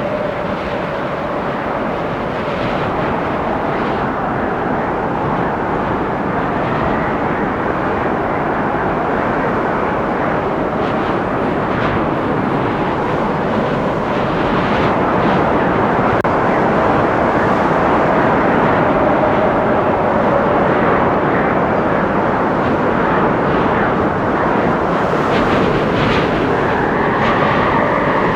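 Windstorm gusting through forest trees: a dense, steady rush of wind with faint whistling tones in it, swelling a little about halfway through, with a few faint short knocks.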